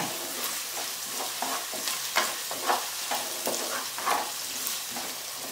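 Chopped onions sizzling in hot coconut oil, stirred with a wooden spatula that scrapes round the black pot in irregular strokes over a steady frying hiss.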